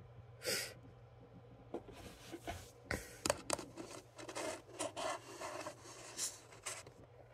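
Faint rubbing and scraping with scattered small clicks, like something being handled close to the microphone, over a steady low hum.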